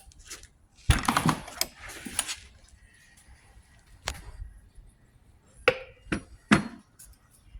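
Metal water pump housing being turned over and handled on a workbench: a clunk about a second in with a short run of knocks and clinks, a single click midway, and three sharp knocks near the end.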